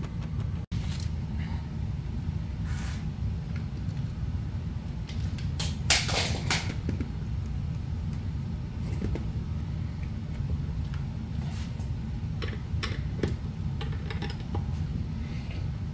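Cordless impact drivers and long screws being handled and set on a wooden block: scattered light clicks and knocks, with a louder clatter about six seconds in, over a steady low rumble.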